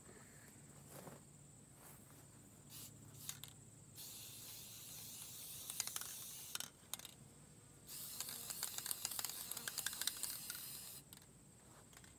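Aerosol spray-paint can hissing in two long bursts, the second starting about two seconds after the first ends, with a few short clicks before the first. The can is nearly empty but still spraying.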